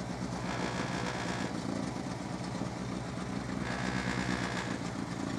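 Rally car's engine idling steadily while the car stands still, heard from inside the cabin.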